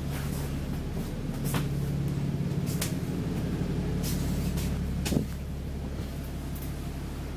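Steady low hum of a stationary Enviro400 MMC double-decker bus, heard on its upper deck. Several sharp clicks and a louder knock about five seconds in, after which the hum drops a little.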